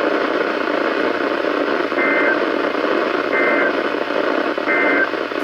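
NOAA Weather Radio EAS broadcast through a radio receiver: three short bursts of SAME digital data tones, the end-of-message code, each a brief two-tone screech about a second and a half apart. Underneath is steady radio static hiss with a faint steady tone.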